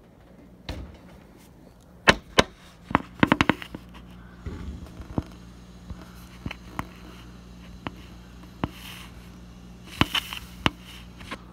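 Irregular sharp clicks and taps, with a quick run of them about three seconds in and another near the end, over a steady low hum.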